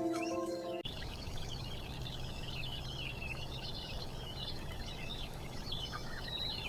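Outdoor ambience: continuous high chirping, as of small birds, over a steady low background noise. Music cuts off abruptly under a second in.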